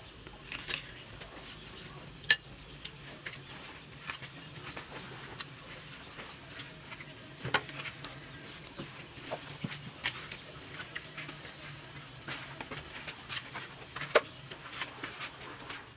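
A person eating: chewing and mouth sounds with scattered sharp clicks and clinks, the loudest about two seconds in and another near the end.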